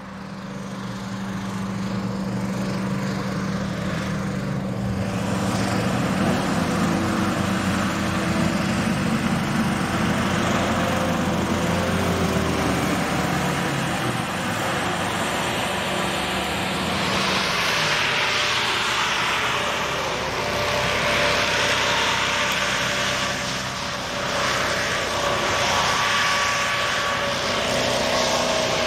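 Hovercraft engines and ducted propeller fans running steadily, fading in over the first couple of seconds. Partway through, the engine notes shift and a louder hiss of air and spray comes in.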